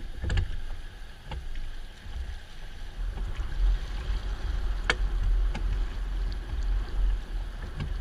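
Oars of a rowed river raft dipping and splashing in the water, with a few sharp knocks, the strongest about five seconds in, over a steady low rumble.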